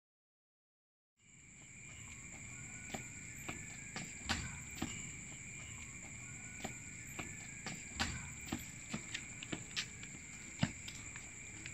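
Insects chirring steadily, setting in about a second in after silence, with scattered footsteps of a person walking along a footbridge.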